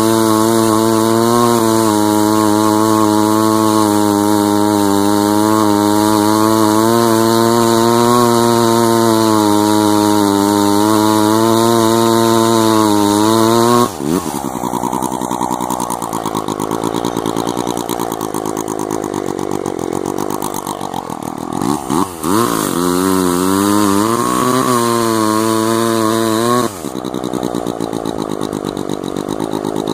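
Sachs Dolmar KMS-4 chainsaw's single-rotor Wankel rotary engine running hard under load while cutting through a log for about fourteen seconds. The cut then ends suddenly and the engine runs on with its pitch rising and falling. Near the end it drops to a quieter, steadier running.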